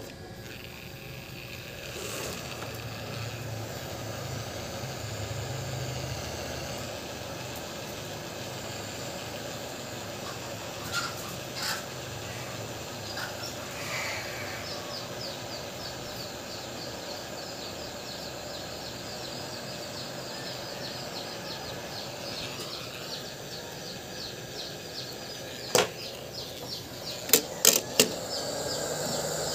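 Hot-air rework gun blowing a steady hiss of hot air over a phone's charging-port board, heating the solder at the charging port. Several sharp clicks come near the end.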